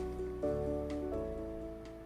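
Instrumental background music, sustained notes changing a couple of times and fading out.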